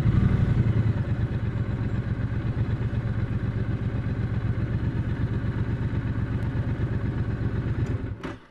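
Triumph Bonneville Speedmaster 1200's parallel-twin engine running at low speed with a steady pulsing beat, a little louder in the first second. It stops abruptly near the end.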